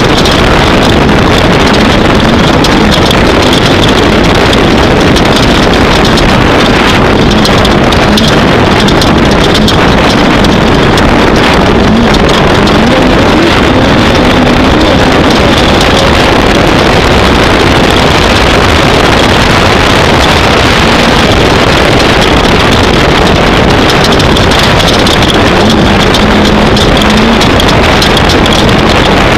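Off-road race vehicle's engine running hard at speed, loud and steady under heavy wind and road noise on the microphone, with the engine pitch rising briefly a couple of times.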